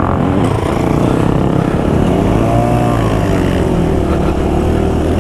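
Dirt bike engines. The rider's own Suzuki DR-Z125L, a small single-cylinder four-stroke, idles steadily close by. Another dirt bike passes about two to three seconds in, its engine pitch rising and then falling.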